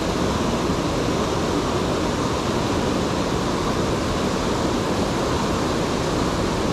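Steady rush of a rocky mountain stream, water pouring over small cascades between boulders.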